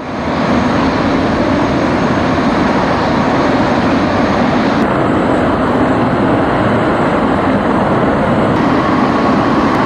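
Helicopter engine and rotor noise, loud and steady, fading in at the start.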